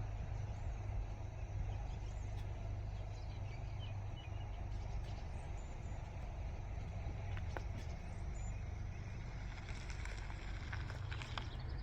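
Outdoor birdsong ambience: scattered faint bird chirps over a steady low rumble, with the chirps coming thicker near the end.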